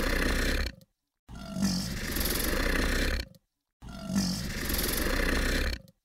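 Crocodile growling: a rough, hissing growl about two seconds long, the same growl repeated every two and a half seconds or so with short silences between.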